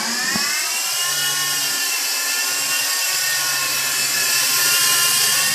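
SKY WOLF radio-controlled toy helicopter's electric motor and rotors whining as they spin up, the pitch rising over about the first second as it lifts off, then holding a steady high whine with a lower hum while it hovers.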